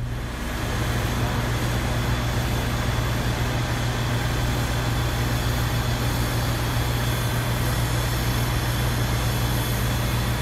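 Steady machinery noise in a power plant's equipment hall: an even, loud rush with a constant low hum under it.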